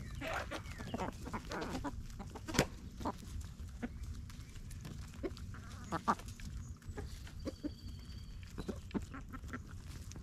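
Chickens clucking while scratching and pecking through dry leaf litter and compost: scattered sharp rustles and ticks, with most of the clucks in the first couple of seconds.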